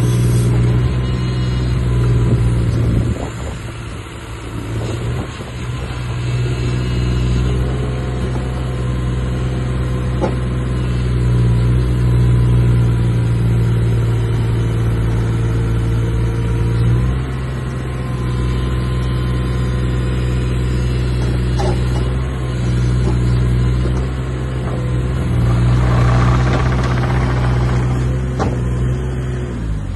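Hitachi ZX26U-5 mini excavator's diesel engine running steadily as the boom, arm and bucket are worked and the machine slews and tracks. The engine note steps down about seventeen seconds in, and a louder rushing noise rises for a couple of seconds near the end.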